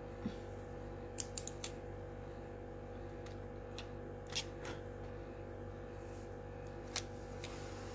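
A GoPro Hero 9 camera being pushed into its plastic Media Mod housing: sharp plastic clicks and taps, a quick run of three or four about a second in, a couple more midway and one near the end, over a faint steady hum.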